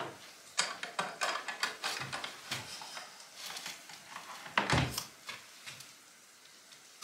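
Hinged wooden window and its latch being handled: a run of clicks, knocks and wooden rattles, with a heavier thump near the end.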